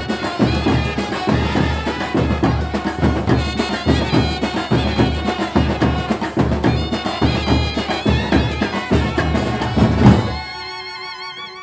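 Street marching band playing, trumpets over fast, dense drumming. About ten seconds in the drums stop on a loud final beat, leaving one wavering held note that fades away.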